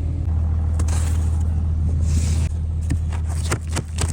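Pickup truck engine idling with a steady low hum, just started after being warmed with a plug-in heater in extreme cold. A few sharp knocks come near the end.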